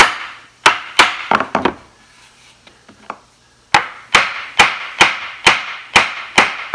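Claw hammer striking the edge of a glued-up wooden shaker door frame, knocking the rails and stiles flush. A quick run of blows, a pause of about two seconds, then a steady series of blows about two a second.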